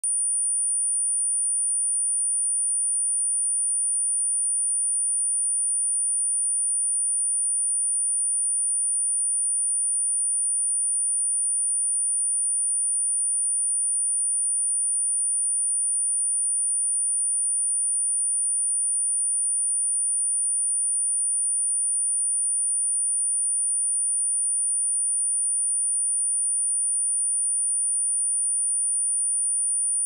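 A pure 9392 Hz sine-wave test tone, a single steady high-pitched whistle held unchanged throughout, played as a speaker test and "speaker cleaner" tone.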